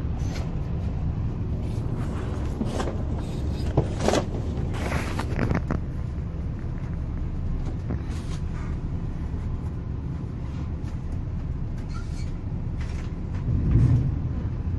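Steady low rumble of an express coach's engine and road noise, heard from inside the passenger cabin. A few short knocks and clatters come a few seconds in, and the rumble swells briefly near the end.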